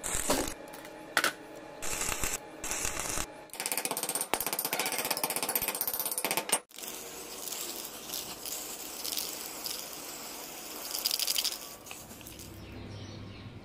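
Metal fabrication work: several short bursts of harsh, crackling noise, then a few seconds of rapid crackling that cuts off abruptly about six and a half seconds in. A steadier hiss follows and swells briefly near the end.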